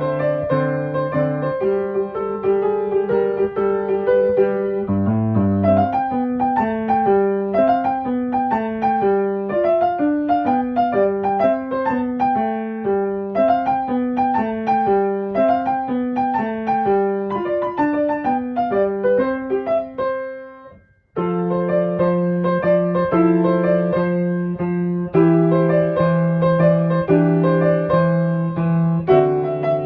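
Background piano music: a light melody of single notes over steady low notes. The music fades out about two-thirds of the way through and starts again a second later.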